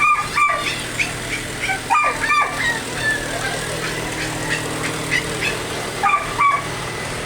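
A dog barking in sharp double barks, three pairs in all, with fainter, shorter calls in between over a steady background noise.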